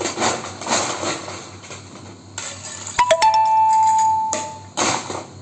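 Glassware and bar tools clinking and rattling on a bar counter. About three seconds in comes a sharp clink, followed by a steady high ringing tone for about a second and a half, the loudest sound here.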